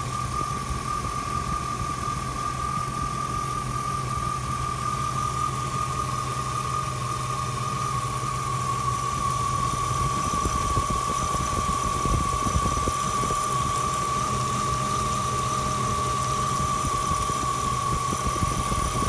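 Car engine running with a steady, high-pitched whistle from under the hood, holding one pitch over the engine's rumble. The whistle persists after the power steering pump, its pulley, the idler pulleys and the water pump were all replaced.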